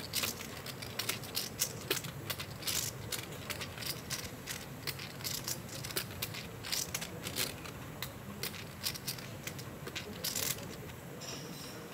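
Poker chips clicking at the table: a run of irregular, sharp clicks as players handle and riffle their clay chips, over a low room hum.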